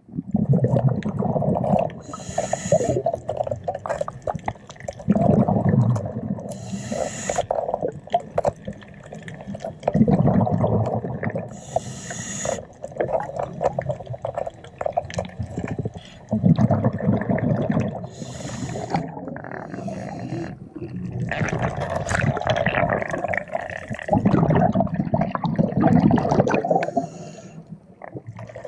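Scuba diver breathing through a regulator underwater, about one breath every five seconds. Each breath has a short hiss on the inhale and a longer burst of gurgling exhaust bubbles on the exhale. The last exhale, near the end, runs longest.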